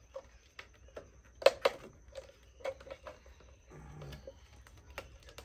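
Scattered clicks and knocks of a plastic bottle being handled and fitted against a bicycle frame, the loudest a pair of sharp knocks close together about a second and a half in.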